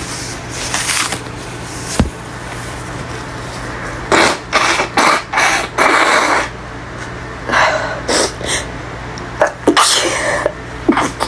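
A person blowing her nose in a series of short, noisy blasts, starting about four seconds in and coming in three groups. A single click comes about two seconds in.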